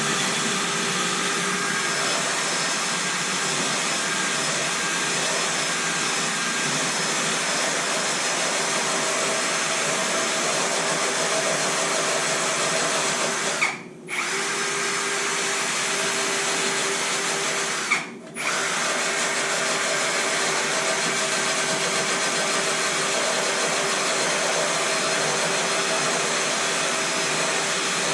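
Electric power sanding tool running steadily while sanding a steel truck frame, with a steady hum under the noise. It stops briefly twice, about 14 and 18 seconds in.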